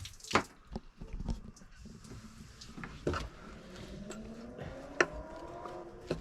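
Scattered knocks and clicks of hands working on the newly fitted plastic plumbing, and in the second half a faint tone rising slowly in pitch, as of water running into a container as it fills.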